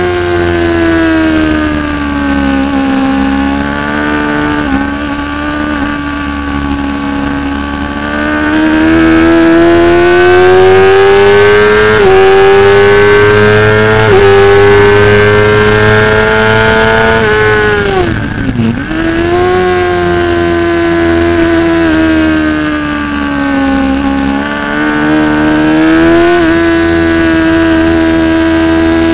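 Onboard sound of a 600 cc Supersport racing motorcycle engine running hard at high revs. The pitch climbs through the gears with a few quick upshift steps, then drops steeply about two-thirds of the way in as the bike brakes and downshifts for a corner, and climbs again.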